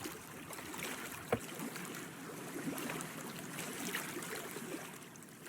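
Water lapping and trickling against a boat's hull, with small splashes and one sharp knock about a second in.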